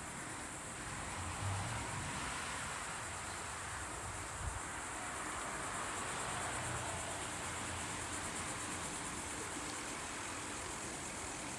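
Steady high-pitched chorus of insects, over a soft even rush of wind and tyre noise from a bicycle rolling along a paved path.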